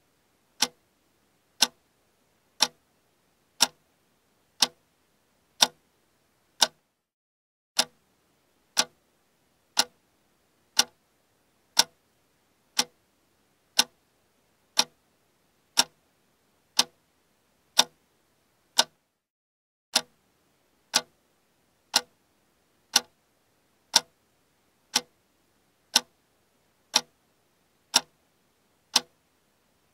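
Ticking-clock sound effect: one sharp, dry tick about every second, the countdown timer for answering a quiz question.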